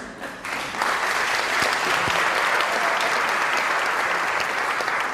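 Lecture audience applauding, breaking out about a second in and dying down near the end.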